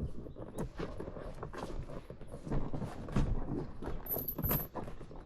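Irregular knocking and clattering, several hard knocks a second at uneven spacing, as gear is handled.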